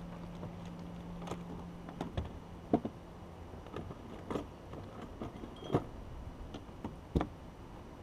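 Scattered light knocks and clicks of gear being handled in a plastic fishing kayak, five or so sharper ones spaced a second or more apart. A low steady hum fades out about two to three seconds in.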